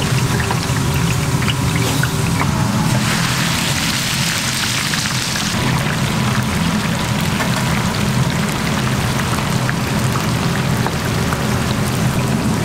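Potato slices deep-frying in hot oil in a wire fryer basket: a steady crackling sizzle that swells into a louder hiss for about two and a half seconds, starting about three seconds in, as the raw slices go into the oil.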